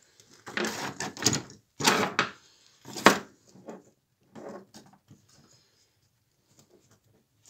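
Handling noises: a series of short knocks, clacks and rustles about a second apart, the loudest a sharp knock about three seconds in, dying away after about five seconds.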